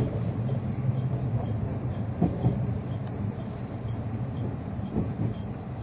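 Inside a JR 103 series electric train car: a steady low hum with a faint, evenly repeating high ticking, and a few short knocks about two seconds in and again near the end.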